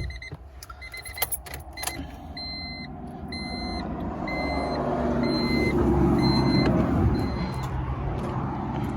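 2000 Honda Civic's warning chime beeping steadily, a little under once a second, stopping near the end, with a few clicks early on. A low rumble swells under it to its loudest about six seconds in.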